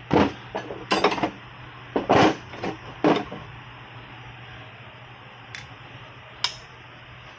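Metal tools and parts clanking and clinking as they are handled: about eight irregular knocks in the first three seconds, then two faint clicks, over a low steady hum.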